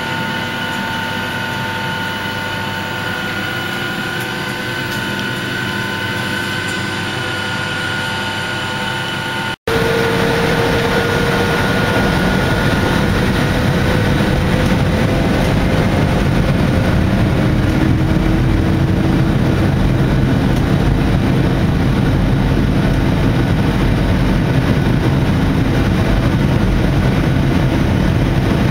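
Boeing 767 cabin noise: a steady jet engine and airflow hum with several steady tones. About ten seconds in it cuts to a louder, deeper rumble as the airliner rolls on the ground, with a slowly sliding engine tone.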